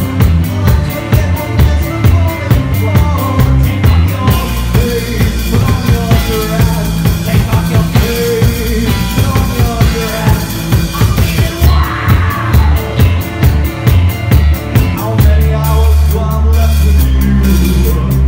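Band playing live: drum kit beating a fast, even rhythm under guitar. About three-quarters of the way through, the low end gets heavier and fuller.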